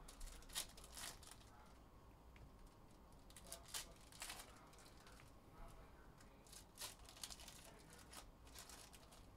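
Foil wrappers of Donruss football card packs being torn open and crinkled by hand: faint scattered rips and crinkles, a few louder than the rest.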